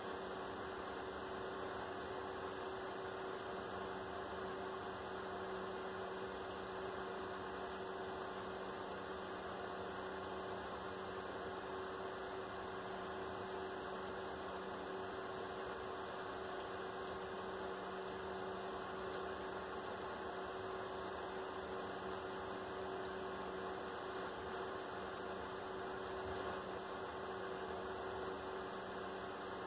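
Steady electrical hum with a faint hiss, unchanging, with no distinct sounds from the snake.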